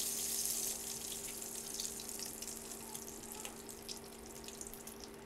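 Butter and oil sizzling as they foam in a nonstick pan, with scattered small pops and crackles; the sizzle slowly dies down, over a faint steady hum.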